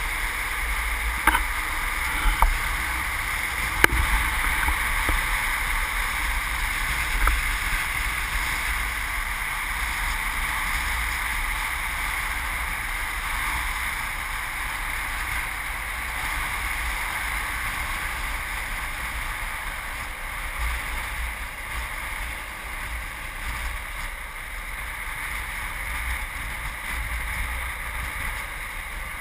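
Wind rushing over a pole-held action camera's microphone and longboard wheels rolling on asphalt at downhill speed: a steady rushing roar with low buffeting. A few sharp clicks come within the first four seconds.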